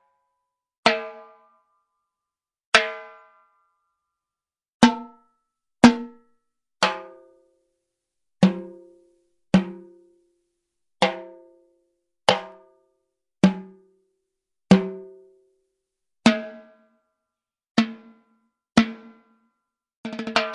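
Timbales struck one hit at a time, each sharp stroke ringing out with a metallic pitched tone before the next, about a second apart; near the end a quick roll of rapid strokes.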